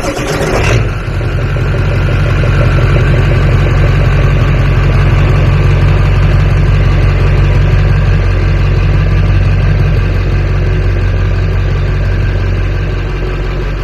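Ford 7.3 L Power Stroke V8 turbo-diesel being cranked by its rebuilt starter and firing about a second in, then idling loud and steady.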